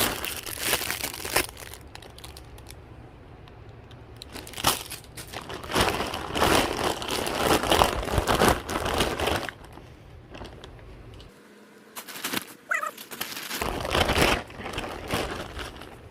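Bags and packaging rustling and crinkling as items are rummaged through and pulled out. It comes in irregular bursts, with quieter pauses between handling.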